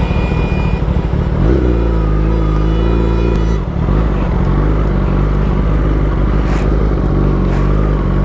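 Kawasaki Ninja ZX-10R's inline-four engine running at low revs as the bike slows and rolls along at low speed. The engine note shifts a little past a second in and dips briefly near the middle. A few sharp clicks sound in the second half.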